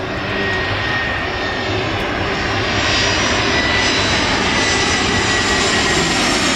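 Twin-engine jet airliner on landing approach, its turbofan engines a dense rushing noise with a thin whine. The noise grows louder as the plane comes overhead, then cuts off suddenly at the end.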